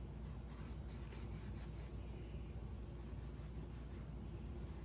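Paintbrush bristles scratching and dabbing paint onto a canvas in short, irregular strokes, over a steady low hum.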